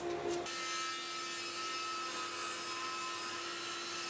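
A thickness planer runs for about half a second. The sound then changes abruptly to a table saw running and ripping along a hardwood board, resawing it thinner: a steady whine over the hiss of the blade in the wood.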